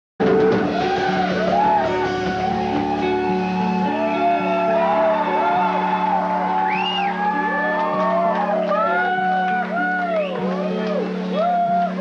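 A band playing live, caught on a camcorder: low held notes drone under a stream of short, warbling tones that slide up and down.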